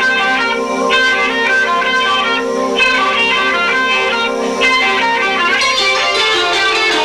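Live rock band playing, with electric guitar to the fore, picked up by a 1990s camcorder's built-in microphone, so the sound is low-fi.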